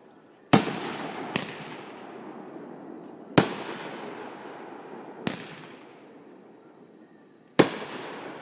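Fireworks going off: five sharp bangs a second or two apart, each followed by a fading tail. The bangs about half a second in, in the middle and near the end are the loudest, and the second one, soon after the first, is the weakest.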